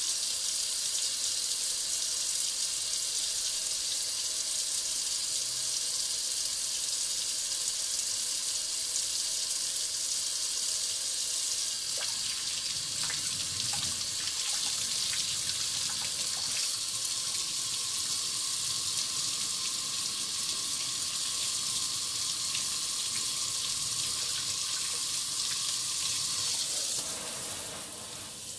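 Kitchen faucet running into a stainless steel sink as a diamond sharpening plate is rinsed under the water, with a few light clicks in the middle. Near the end the flow turns to a softer spray.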